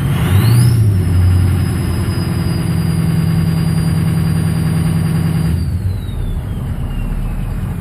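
Ford 6.0 Powerstroke V8 turbodiesel at high idle with its turbo whistling loudly over the engine. The whistle rises in pitch as the revs come up about a second in, holds steady, then glides down as the revs drop near the end.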